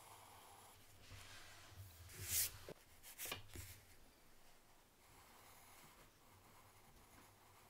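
Graphite pencil scratching faintly across sketchbook paper, with a louder rub against the paper about two and a half seconds in and two shorter ones about a second later.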